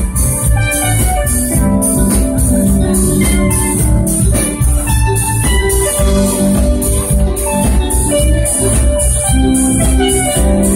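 Live band playing with a steady beat: drum kit and electric guitars, with keyboard-like sustained notes over a heavy bass.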